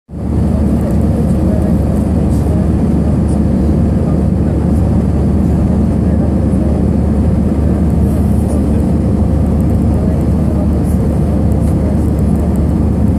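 Steady low rumble of a jet airliner's cabin in cruise: engine and airflow noise heard from a seat by the window, with a faint steady hum above it. It fades in just at the start.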